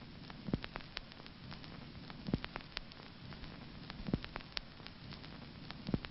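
Vinyl record surface noise under a turntable stylus: a steady hiss full of irregular crackles and pops, with a soft low thump repeating about every 1.8 seconds.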